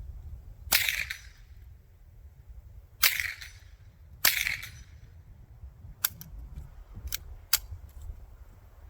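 Three suppressed shots from a Savage 64 Precision .22 LR rifle fitted with a Rugged Obsidian 9 suppressor, about a second in, at three seconds and at four seconds, each a sharp crack with a short tail. Several shorter, thinner cracks follow in the second half.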